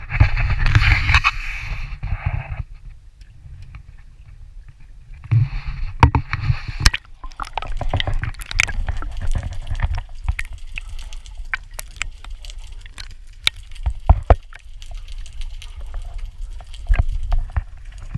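Water sloshing and gurgling around a camera at and below the sea surface, over a low rumble, with scattered sharp clicks and knocks.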